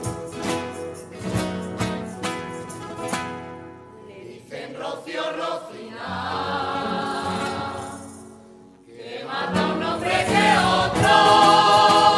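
Rociero choir singing with strummed Spanish guitar. The guitar strums alone at first, the voices come in about four seconds in, drop away briefly, then return louder with the guitar near the end.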